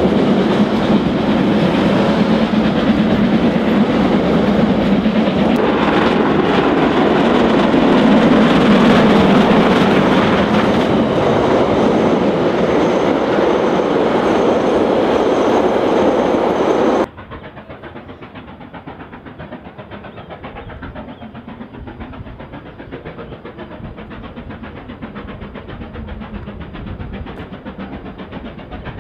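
Steam-hauled passenger carriages rolling past close by, a loud steady rumble with wheels clicking over the rail joints. About seventeen seconds in it cuts to a much quieter sound of the train further off.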